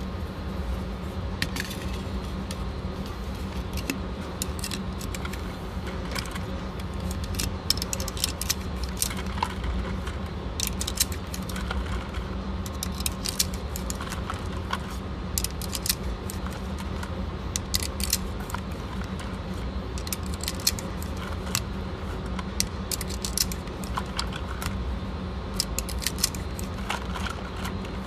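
Pistol cartridges being pushed one after another into a Canik pistol magazine: many small metallic clicks and clinks at uneven intervals, over a steady low hum.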